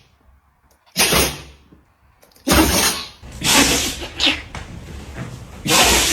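Dogs sneezing: a series of about five short, sharp sneezes, each a quick burst of breath that dies away fast.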